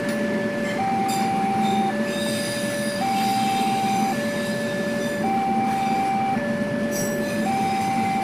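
Level-crossing warning alarm sounding its two-tone signal, switching between two pitches about once a second, which warns that a train is crossing. Underneath is the steady rumble of passenger coaches rolling past close by, with brief high wheel squeals now and then.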